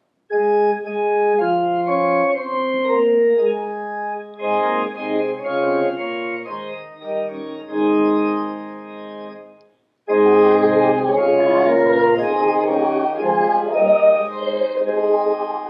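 Church organ playing a hymn tune in held chords, breaking off briefly about ten seconds in and starting again fuller.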